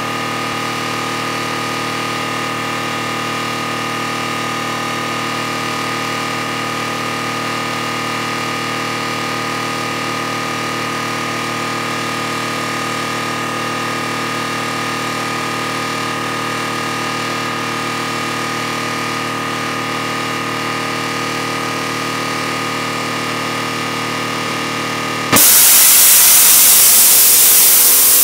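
Jeep's on-board air compressor running with a steady hum. Near the end its 150 PSI safety valve suddenly pops open with a very loud, steady hiss of escaping compressed air. The valve opens before the 145 PSI pressure switch has cut the compressor off, because the two settings are too close together.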